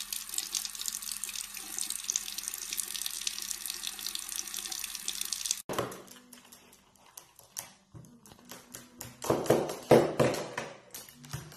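Water running from a tap into a sink, a steady rush, which stops abruptly about five and a half seconds in. Then a string of sharp clicks and knocks, loudest about four seconds later, as a caique parrot handles a small hard object on a table.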